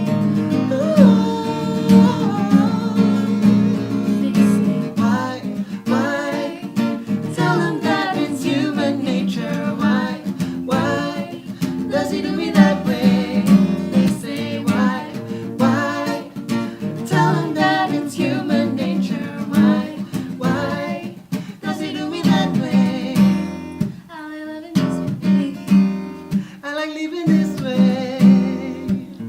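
Acoustic guitar strummed steadily, with voices singing a melody over it.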